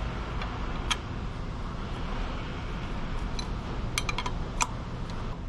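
A wrench clinking against a metal air-line fitting: a single sharp click about a second in and a quick run of clicks around four seconds in, over a steady background hiss.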